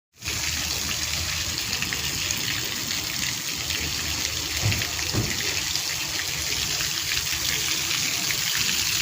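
Water falling and splashing steadily in a decorative waterfall feature, a constant rushing splash that cuts in suddenly at the very start.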